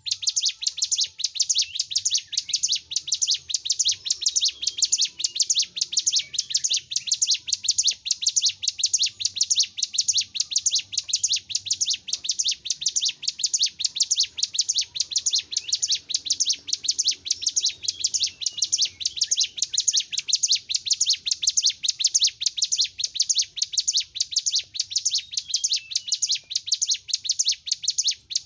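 Caged ciblek gunung singing a long, unbroken run of quick, high chirping notes, repeated evenly several times a second.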